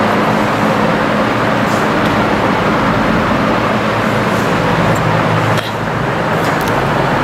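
Steady, loud mechanical drone with a low hum running underneath, dipping briefly about five and a half seconds in.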